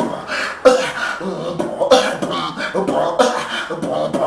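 Human beatboxing: a run of sharp mouth-made percussion hits mixed with short sung and voiced tones, all made with the mouth alone.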